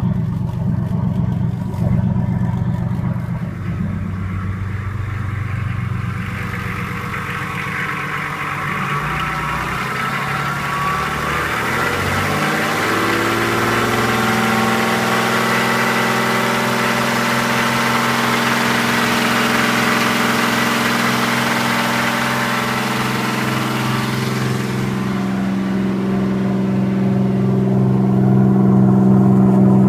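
Turbocharged inboard marine diesel engine running steadily. Its note rises about twelve seconds in. For the next several seconds it sounds brighter, with mechanical clatter and a thin steady whine heard close over the open engine bay, then it settles back to a steady low running note near the end.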